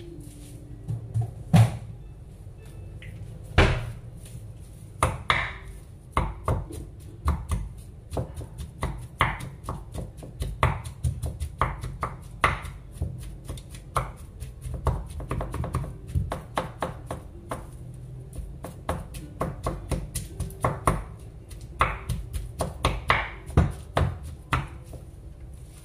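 Wooden spatula jabbed down again and again into a mashed potato and corn mixture in a nonstick pan, each stroke a short knock against the pan, at an uneven pace of one or two a second.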